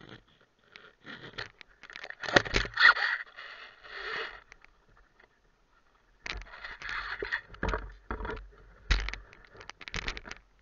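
Paraglider wing's nylon canopy fabric rustling as it is bunched up and gathered by hand, in irregular bursts with a short pause around the middle.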